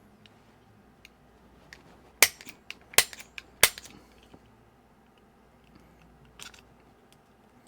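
Three sharp snaps about two seconds in, with a few lighter clicks around them: a die-cast toy car and hand tools being worked to pry the car open.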